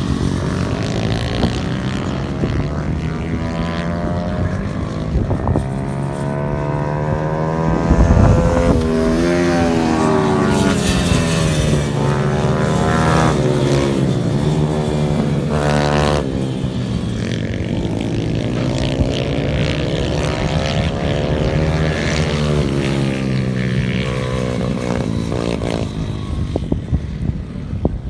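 Small pit bike engines revving up and falling back again and again as the bikes accelerate and shift through the gears around the track, loudest as a bike passes close about eight seconds in.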